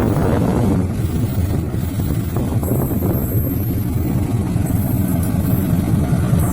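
KAI CC206 diesel-electric locomotive running with a loud, steady low rumble.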